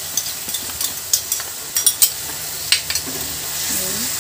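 Onions and capsicum sizzling in a hot iron kadhai while a wooden spatula stirs and scrapes them, with a few sharp clicks of the spatula against the pan in the first three seconds.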